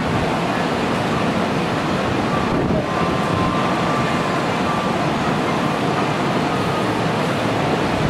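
Diesel engine of a KiHa 125-400 series railcar (ex-Takachiho Railway TR-400) running steadily while the car stands at the platform.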